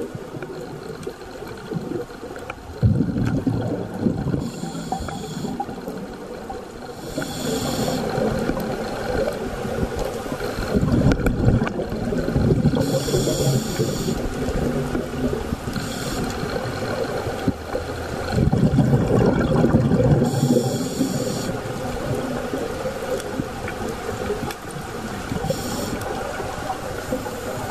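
Scuba breathing underwater through a regulator: a hiss at each inhalation and bubbling exhalations, recurring every few seconds over a steady underwater rumble.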